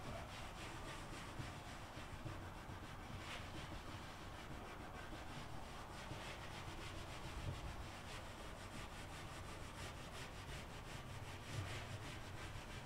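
Hands rubbing and smoothing carpet down onto a glue-coated plywood board, a soft repeated brushing, over a low steady hum.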